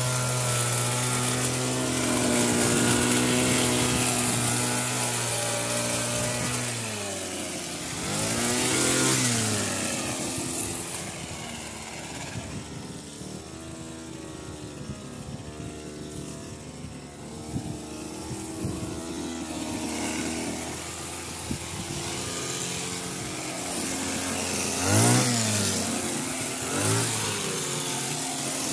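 Petrol hedge trimmer engine running at high speed while cutting, then dropping to idle about seven seconds in. It revs up once briefly soon after, and twice more in quick short blips near the end.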